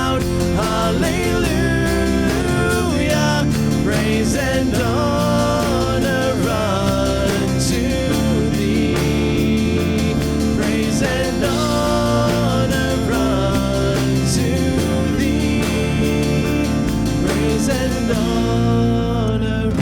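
Church praise band playing a worship song, with acoustic guitar under a melody line.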